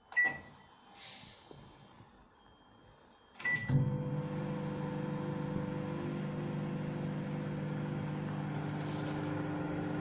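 LG convection microwave oven: a short keypad beep, then a second beep about three and a half seconds in as it starts, after which it runs on high power with a steady hum.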